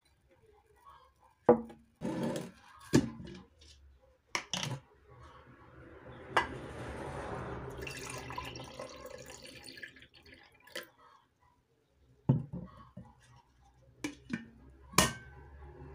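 Kvass poured from a large glass jar into a ceramic mug: a steady stream of liquid for about four seconds in the middle. Before and after it, a handful of sharp knocks and clinks as the mug and jar are picked up and set down on the counter.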